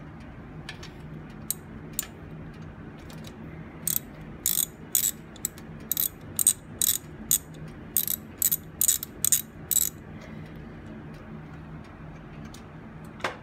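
Hand socket ratchet clicking as it turns the transmission fill plug (dipstick) on a Harley-Davidson Road King, a run of about fifteen clicks in the middle with a few single clicks before it. A steady low hum runs underneath, and a single knock comes near the end.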